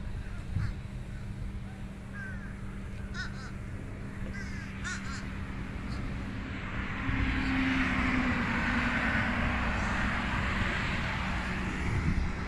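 Birds giving short, crow-like cawing calls over the first half. About halfway through, a broad rushing noise with a low hum under it rises and holds until near the end.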